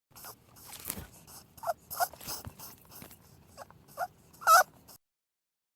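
Rabbit sounds: a run of short clicks and scratchy rustling, with a few brief high squeaks, the loudest about four and a half seconds in.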